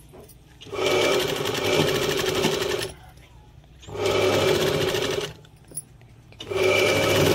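Sewing machine stitching through fabric in three spurts of about two seconds, one second and a second and a half, stopping briefly between them.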